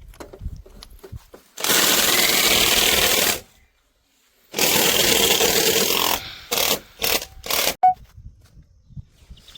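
A high-pressure jet hissing in loud blasts while control valve parts are being cleaned. It runs in two long blasts of about two seconds and a second and a half, then four short bursts, with a brief high squeak near the end.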